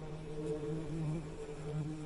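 Bees buzzing: a steady low drone that swells and fades a little.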